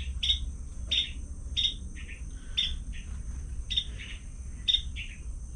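Small bird chirping repeatedly, about one sharp chirp a second, each followed by a softer one, over a steady low hum.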